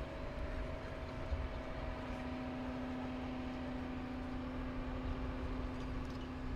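Crane's diesel engine running steadily while hoisting a dump truck: an even hum over a low rumble, with the hum growing a little stronger about two seconds in.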